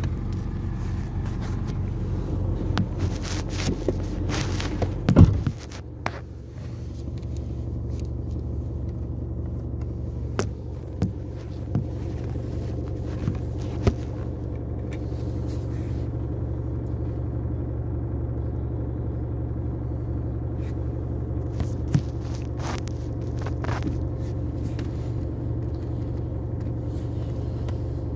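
Car engine running, heard from inside the cabin, with a steady low hum. A single thump about five seconds in as the car comes to rest, then steady idling with a few scattered clicks.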